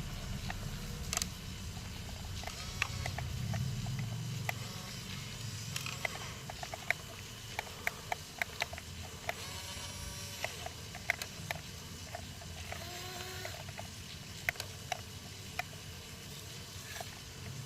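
Toy RC excavator's small electric motors whirring, loudest over the first few seconds, with frequent sharp clicks and taps throughout.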